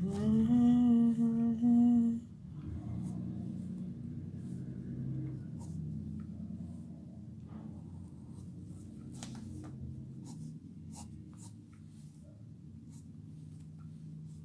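A person hums one held note for about two seconds, rising slightly at the start. Then comes softer pencil sketching on paper, with scattered light scratching strokes.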